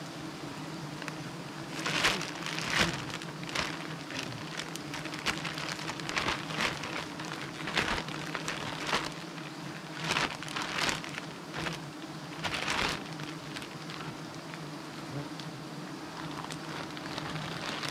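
Steady buzzing hum of a disturbed colony of giant honeybees swarming around their comb. Repeated crackly rustling of a plastic bag being handled, loudest about two seconds in and again about ten to thirteen seconds in.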